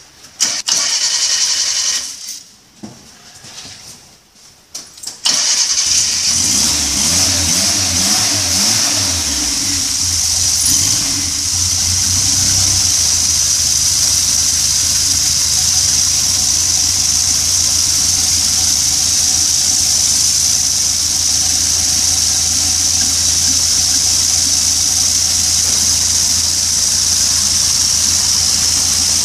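A SEAT 600's rear-mounted four-cylinder engine being started. After a short burst of cranking and a pause, it catches about five seconds in. The revs waver unevenly for several seconds, then it settles into a steady idle.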